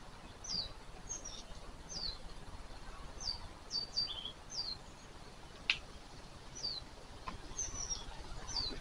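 Small birds chirping outdoors: a string of short, high, downward-sliding chirps, one every half second or so. A single sharp click sounds a little past the middle.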